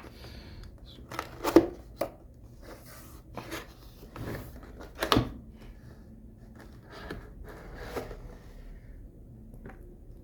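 Cardboard keyboard box being opened and handled: irregular knocks, scrapes and rustles of the lid and packaging, with the sharpest knocks about one and a half and five seconds in.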